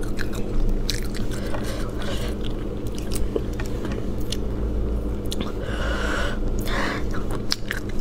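Close-miked eating of spicy braised rabbit head: chewing, sucking and lip smacks, with many short wet clicks, over a steady low hum.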